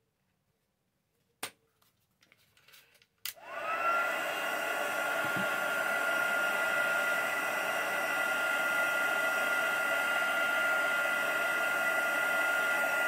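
A click, then about three seconds in a handheld electric blow dryer switches on: its motor whine rises quickly to a steady high pitch over a loud, even rush of air, and it keeps running.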